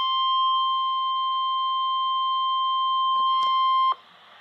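NOAA Weather Radio 1050 Hz warning alarm tone: one steady, piercing beep that signals a warning broadcast is about to follow. It cuts off suddenly about four seconds in, leaving faint radio hiss.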